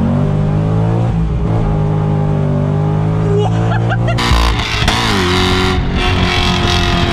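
2008 Chevrolet Corvette Z06's 7.0-litre V8 at full throttle, its note climbing steadily through the revs. About two-thirds of the way in the pitch dips briefly at an upshift, then it pulls again. The engine is heard louder and rawer, with wind noise, from outside the car.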